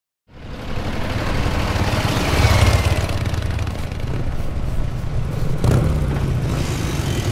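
A motorcycle engine running with a low rumble as the bike rides in. It cuts in suddenly just after the start and is loudest about two and a half seconds in, with a brief knock near the end.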